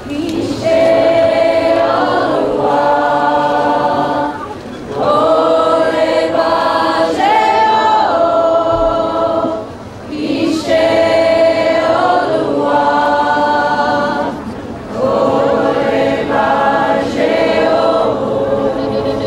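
Choir singing in four long held phrases, with a brief dip between each.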